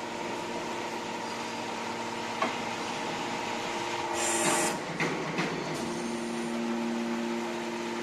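Hydraulic scrap metal baler running, with a steady hum from its 18.5 kW electric motor and hydraulic pump. There is a clank about two and a half seconds in, a short loud hiss midway, and two more knocks just after. The hum then settles into a stronger, steadier tone.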